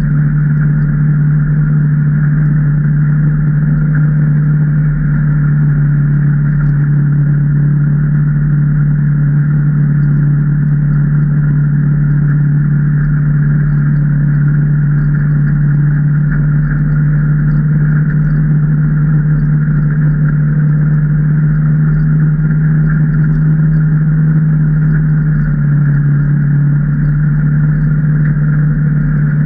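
Can-Am Maverick Trail 800 side-by-side's V-twin engine running at a steady speed under way, a constant drone that drops slightly in pitch near the end.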